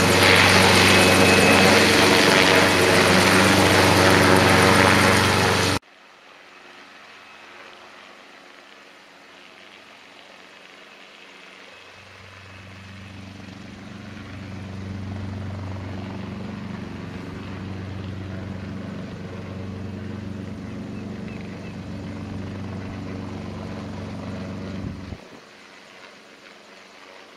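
A Brantly B-2B helicopter hover-taxiing: its Lycoming piston engine and rotor give a low, steady drone that grows louder about halfway through, holds, then cuts off abruptly near the end. Before this, a much louder running noise cuts off abruptly about six seconds in.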